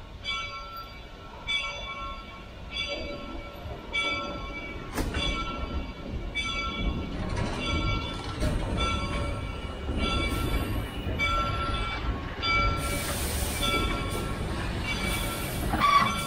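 Bell of the Reading & Northern 425 steam locomotive ringing steadily, about one and a half strokes a second, while the train rolls past with a low rumble that grows from about four seconds in. Near the end there is a hiss and a brief high squeal.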